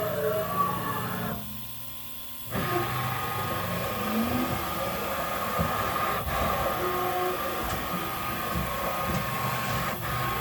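Haas VF-2 CNC vertical machining center running, with short rising and falling whines from its axis drives over a steady mechanical hum. It briefly drops quieter about a second and a half in.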